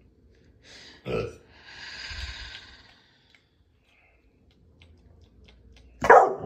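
Catahoula leopard dog giving short, low barks at the hamburger meat in her food bowl: one about a second in and a louder one near the end.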